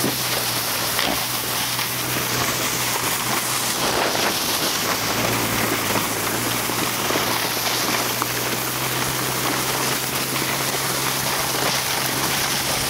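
A plastic truck bed liner towed fast over snow, sliding and scraping with a steady rushing hiss of snow and ice spraying against it. A steady low drone from the towing ATV's engine sits underneath.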